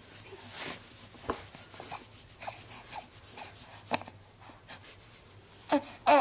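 Rustling and scratching with scattered light clicks, like something rubbing against fabric or a surface close to the microphone. A short pitched sound comes near the end.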